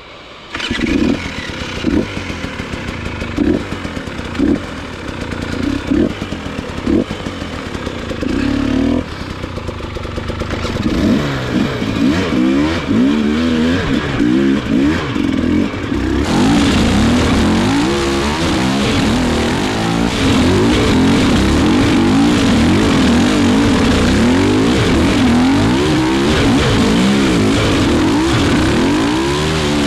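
Off-road motorcycle engine: short throttle blips about once a second at first, then running continuously with the revs rising and falling as it is ridden over rough ground, louder and more constant from about halfway.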